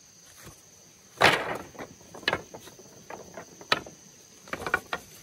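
Wooden poles knocking and clattering against one another as they are set down and sorted on grass: one loud clatter about a second in, then several sharper knocks.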